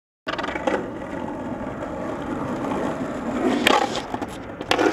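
Skateboard wheels rolling on rough asphalt, a steady gritty rumble that starts suddenly just after the opening. Sharp wooden clacks of the board hitting the ground come three times, the loudest about three and a half seconds in and near the end.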